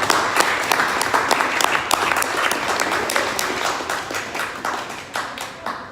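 Audience applauding with dense hand-clapping, fading out near the end, as a fighter is introduced.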